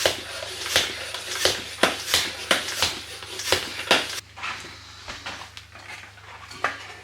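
Bicycle pump inflating a mountain-bike tyre: quick hissing pump strokes, about three a second, that stop about four seconds in.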